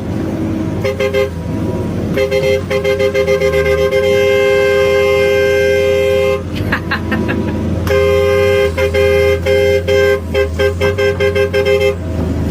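A two-note vehicle horn honking in quick rhythmic toots and long held blasts, the longest lasting about two seconds near the middle, over the low steady drone of a large engine.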